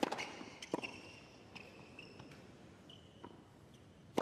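Tennis racquet striking the ball on a serve, a sharp pop at the start and another at the end. A few faint knocks fall in between, over a quiet court with faint high chirping in the background.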